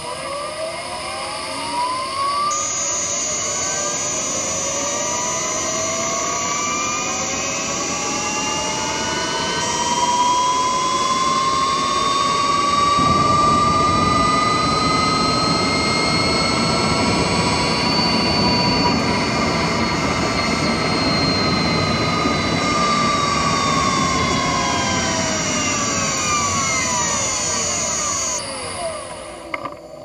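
Honda Insight's third-generation i-MMD permanent-magnet traction motor and inverter whining in electric drive, heard from the engine bay. Several tones climb in pitch as the car pulls away, level off at cruising speed, then fall as it slows to a stop. A steady high whine of the inverter comes in shortly after pulling away and cuts off just before the stop.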